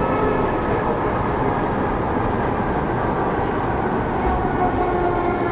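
Rubber-tyred VAL metro car heard from inside while running through a tunnel: a steady rumble with a faint motor whine whose pitch falls late on as the train slows for a station.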